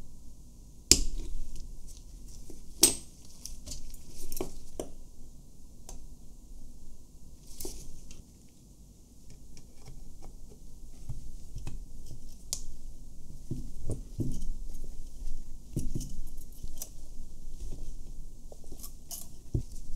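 Handling noises from a 1960 Pentax S3 35 mm camera being reassembled: scattered small metallic clicks and taps as its removable back door is worked onto the body by gloved hands. The two sharpest clicks come about one and three seconds in.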